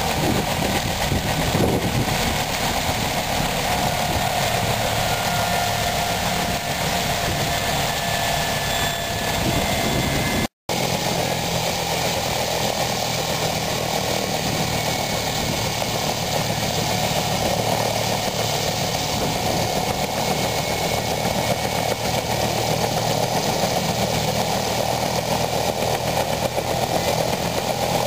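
Bell UH-1 Iroquois helicopter running on the ground with its rotor turning: a steady turbine whine over a low rotor and engine drone. The sound drops out briefly about a third of the way in and then carries on.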